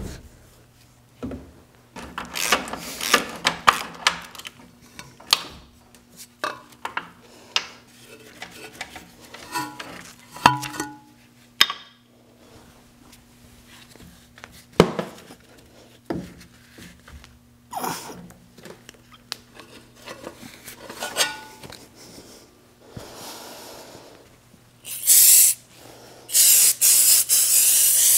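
Hand work on a truck's steering box and frame: scattered metal clicks, clinks and knocks as the box is unbolted and lifted off. Loud hissing bursts come near the end.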